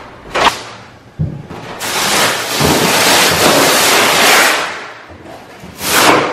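Paper wallpaper being torn and peeled off a wall by hand, coming away easily without steaming: a short rip, a knock about a second in, then a long tear lasting a couple of seconds, and another short rip near the end.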